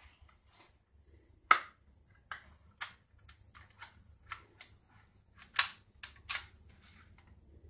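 Crosman 760 Pumpmaster BB rifle being handled and worked: about ten separate mechanical clicks and clacks, the sharpest about one and a half and five and a half seconds in.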